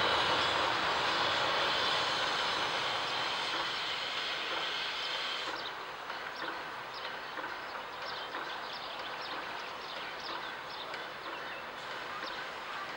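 Passenger train hauled by the BR 42 2-10-0 steam locomotive CFL 5519 running across a river bridge: a steady rumble that fades, its hiss dropping away suddenly about five and a half seconds in. Quieter running follows, with short, irregular high chirps.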